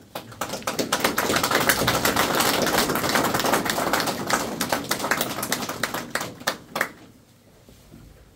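A small group of people applauding: the clapping builds up about a second in, holds, and dies away with a few last claps near the end.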